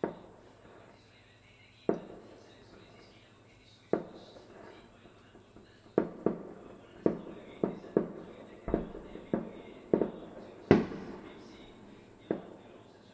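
Aerial firework shells bursting: sharp bangs, each followed by a rolling echo. The first few come about two seconds apart, then about ten follow in quick succession, the loudest about four-fifths of the way through.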